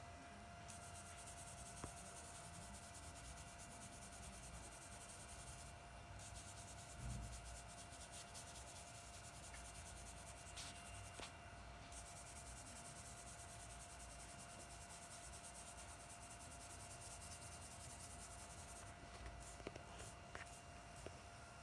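Faint soft brushing of a blending brush across drawing paper, smoothing charcoal shading; the strokes stop briefly a few times. A faint steady tone hums underneath.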